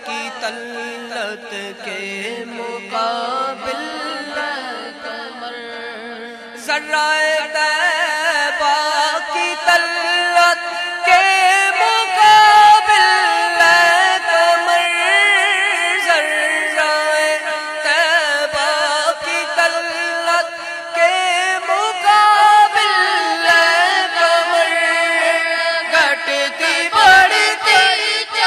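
Boys' voices singing a naat through microphones in long, wavering, drawn-out melodic lines, getting clearly louder about six and a half seconds in.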